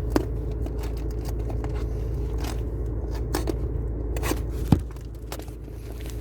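Scattered clicks, scrapes and crinkles of a new gear knob and its packaging being handled, with a sharp click just after the start and another at about 4.7 s, over a steady low hum.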